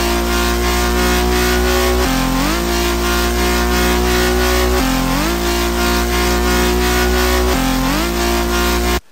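FL Studio 3x Osc synth bass, distorted and chorused, playing a sequenced drum and bass line. It holds long, buzzy low notes and changes note about every two and a half seconds, each time sliding up into the new pitch. It cuts off abruptly near the end.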